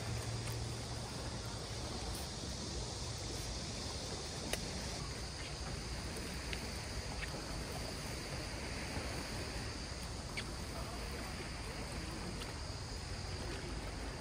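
Steady seaside ambience: light wind and small waves washing against shore rocks, with a few faint clicks.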